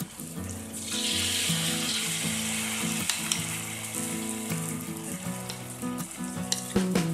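Battered cempedak pieces deep-frying in hot oil in a wok: a steady sizzle that grows stronger about a second in. A few sharp clicks come near the end.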